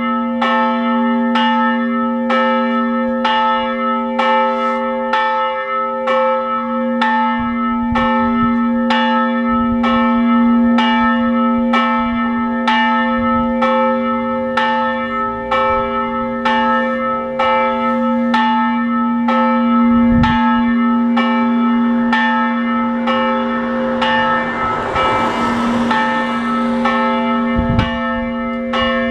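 The church's large bell ringing the noon bell: a steady, even rhythm of clapper strokes, each stroke ringing on into the next over a deep sustained hum. A rushing noise swells and fades about 25 seconds in.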